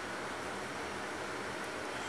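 Steady, even background hiss, with no sneeze, sniff or other sudden sound.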